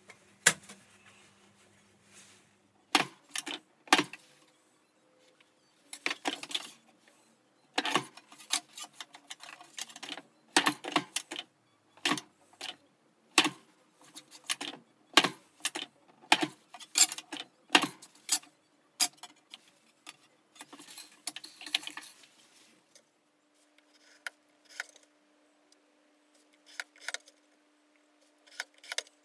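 Thin aluminium sheet and a lever guillotine cutter being worked: many sharp, irregular metallic clicks and clacks, a few a second, thinning out to fewer, quieter clicks over the last several seconds.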